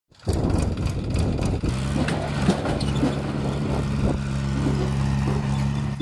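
Powertrac 434 DS tractor's three-cylinder diesel engine running as it pulls a tipping trailer with its bed raised, settling into a steady low note about two seconds in, with scattered knocks and rattles.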